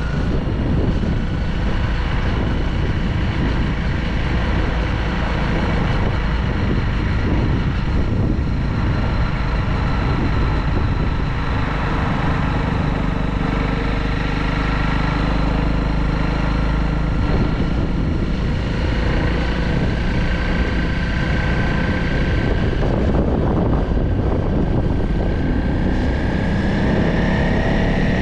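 Wind buffeting on the microphone of a moving vehicle, with a steady motor whine over it that rises in pitch near the end as the vehicle speeds up.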